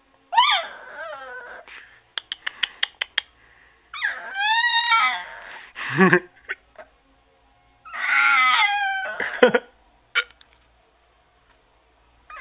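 Boxer puppy howling: three bouts of high, wavering calls that slide up and then down in pitch, with short gaps between them. The second and third bouts end in a louder, lower note. A quick run of small clicks comes about two seconds in.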